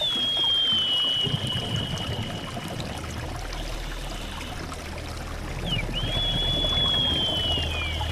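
Quiet passage of an ambient soundtrack: a watery rushing sound under a low drone, with two long, high whistle-like tones that each slide slowly downward, one at the start and one about six seconds in.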